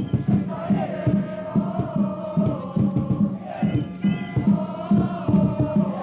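A cheering section of supporters chanting in unison, with long held notes, over a steady drum beat.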